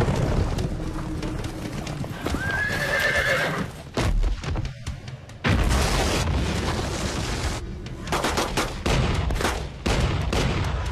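A horse whinnying over the clatter of hooves, then a sudden loud explosion about halfway through, followed by a run of sharp cannon and gunfire bangs near the end.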